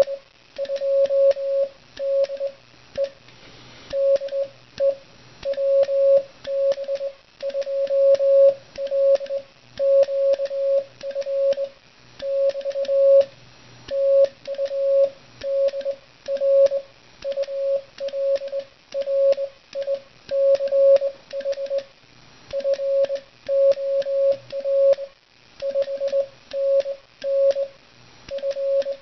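Morse code sent by hand on a Begali Sculpture Swing sideswiper (cootie) key: a steady mid-pitched sidetone beeping on and off in dits and dahs, in groups with short gaps, with faint clicks from the key.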